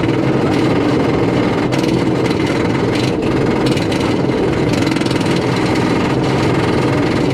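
Roller coaster chain lift and anti-rollback clattering steadily as the train climbs the lift hill.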